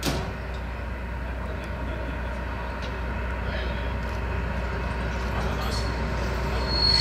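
DR class 119 diesel locomotive running with a steady low drone that slowly grows louder as it approaches. A high wheel squeal starts near the end and is loudest at the close.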